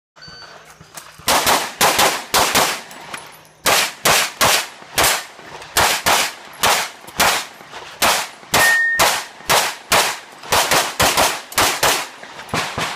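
Rapid-fire pistol shots from a compensated Open-division race pistol, fired mostly in quick pairs, with a short break about three seconds in while the shooter moves or reloads.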